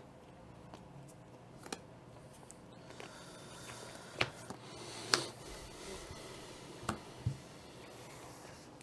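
A handful of light taps and clicks, the loudest a little past halfway, over a faint room hiss: playing cards and game pieces being handled on a tabletop.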